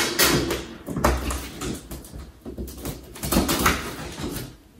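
Utility knife scraping and slicing the packing tape on a cardboard shipping box, with the cardboard rustling and creaking under the hands in short, irregular bursts.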